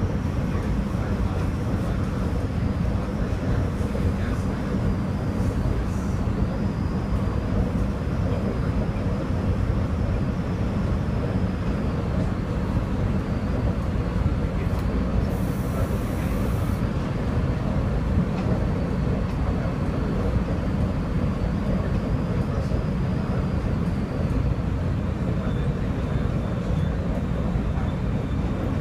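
SEPTA Silverliner IV electric multiple-unit railcar running at speed, heard from inside the car: a steady rumble of wheels on the rails with a faint high whine over it.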